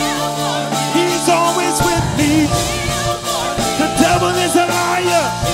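Live gospel worship music: a praise team singing drawn-out lines without clear words over held keyboard chords and bass. The low end of the accompaniment changes about two seconds in.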